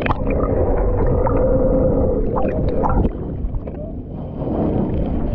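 Muffled underwater sound picked up by a submerged camera: a steady hum with a few sharp clicks, cut off above the middle frequencies. About three seconds in the hum fades, and near the end the sound opens up into brighter splashing and surface water noise as the camera comes up out of the water.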